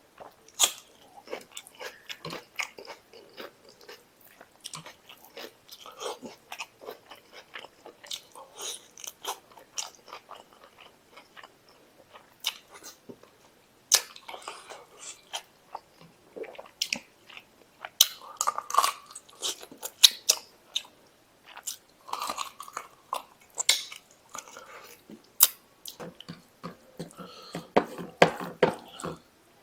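Close-up chewing and mouth sounds of someone eating mutton masala curry with rice by hand: wet smacking and squelching with many sharp clicks, in irregular bursts.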